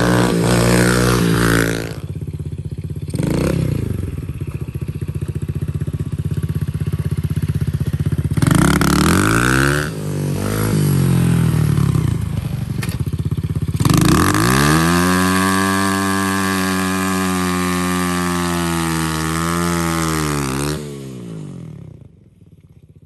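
125cc dirt bike engine running hard as it is ridden, revs rising and falling through the gears. About 14 seconds in the revs climb and hold high, then drop and the sound fades near the end.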